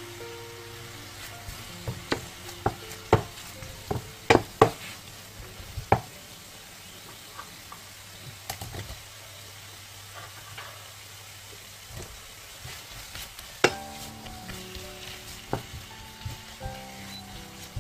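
Pork belly in gochujang sauce sizzling in a frying pan. Sharp clicks and knocks come from a wooden spatula stirring, most of them between about two and six seconds in and another loud one near fourteen seconds, as julienned vegetables are stirred into the sauce.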